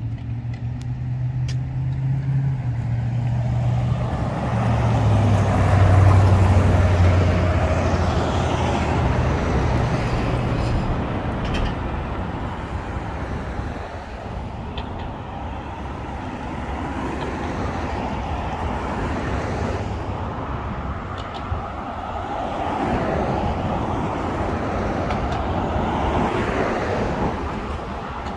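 Motor vehicle running with a broad rush of road and wind noise. A low engine hum is heard for the first ten seconds, dropping in pitch about five seconds in, and the rush is loudest around six seconds in.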